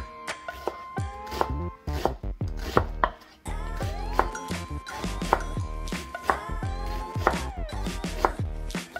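Chef's knife finely dicing a Spanish onion on a bamboo cutting board: repeated sharp knife taps against the wood, over background music.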